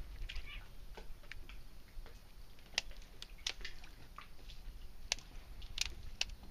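Scattered faint clicks and ticks, a dozen or so at irregular intervals, over a faint low hum.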